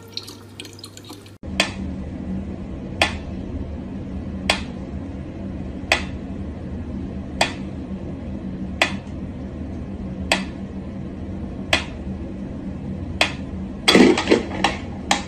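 A mechanical pyramid metronome ticking slowly, one sharp tick about every second and a half. It follows a brief trickle of tap water at the start, and near the end a louder scuffle comes as a cat leaps at the metronome.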